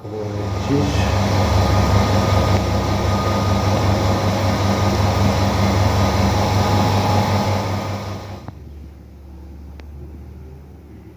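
An electric dental-lab machine runs with a steady, loud hum, then is switched off and runs down about eight and a half seconds in.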